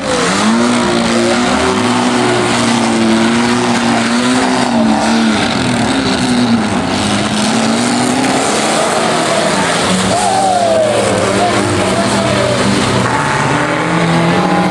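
Engines of several old banger-racing cars running and revving during a demolition race, their pitch rising and falling, over a steady wash of track noise.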